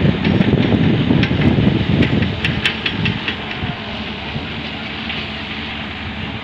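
Volvo EW130 wheeled excavator tipping a bucket of earth into a tractor trolley: a rumble with clatters of clods and stones for about three seconds. Then the excavator's diesel engine runs steadily with a low hum as the boom swings back.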